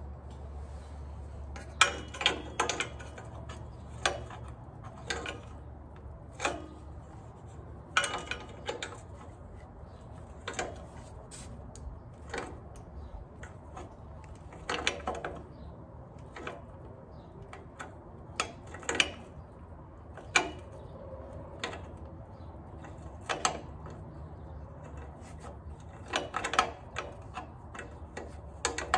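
Irregular metallic clicks and clinks of adjustable pliers gripping and turning an oxygen sensor as it is tightened into the exhaust pipe, a sharp click every second or two, with a clustered run of them near the end. A low steady hum runs underneath.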